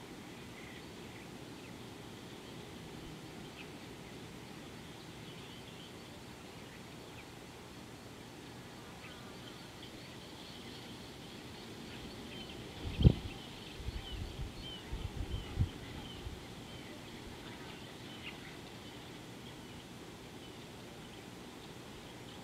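Outdoor wildlife ambience: faint, scattered high chirps over a steady low background hum. About halfway through, a brief run of low thumps and rumbles stands out, with the loudest thump first.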